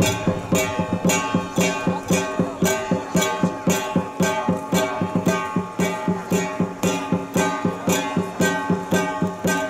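Traditional music: a sustained melody over an even percussive beat of about three strikes a second.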